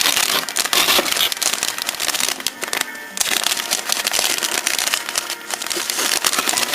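Thin plastic parts bag crinkling and crackling as it is cut open and the model kit's sprues are unwrapped, with continuous rustling throughout.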